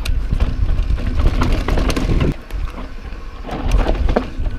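Mountain bike running fast down a dirt trail: tyres crunching over dirt with a steady stream of clatters and knocks from the bike, under a heavy wind rumble on the camera microphone. It eases off briefly a little past halfway.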